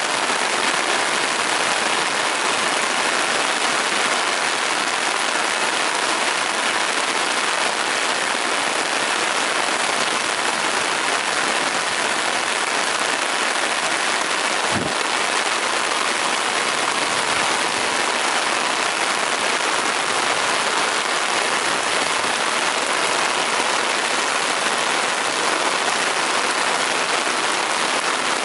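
Heavy rain falling steadily, a dense even hiss, with one brief low bump about halfway through.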